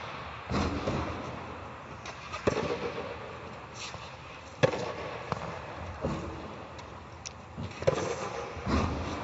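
Tennis balls being struck by a racket and bouncing on a hard indoor court: several sharp pops a second or two apart, each echoing off the hall's walls.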